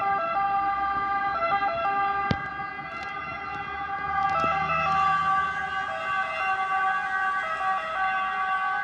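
Two-tone sirens of Italian fire engines answering a call, alternating between two pitches, with a sharp click about two seconds in.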